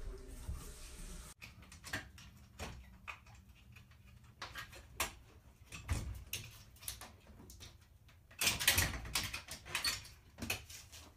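A dog pawing and scratching at a glass storm door: a run of scattered taps and rattles, with a dense flurry of scratching about two-thirds of the way in.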